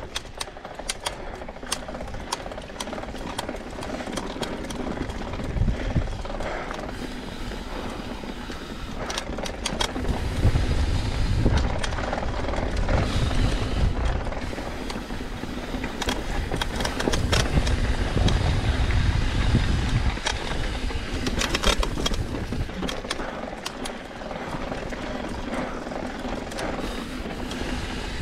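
Mountain bike rolling fast down a rocky dirt trail: steady tyre and wind noise with scattered clicks and knocks from the bike rattling over rocks and roots, and a heavier low rumble through the middle stretch.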